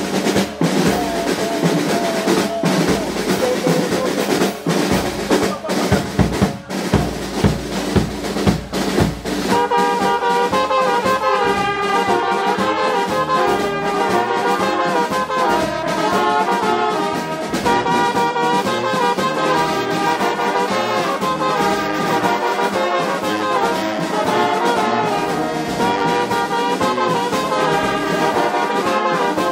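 Drums beating for about the first ten seconds, then a brass band takes up a melody over the drums.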